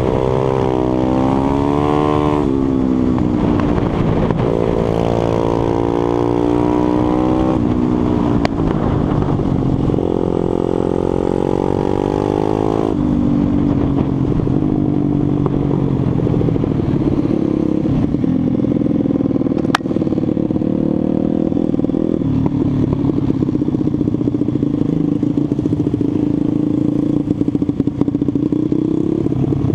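Onboard sound of a 140 cc pitbike supermoto's single-cylinder engine, revving up and down repeatedly as it is ridden hard through corners, then running at lower, steadier revs for the second half as the bike slows. A single sharp click about twenty seconds in.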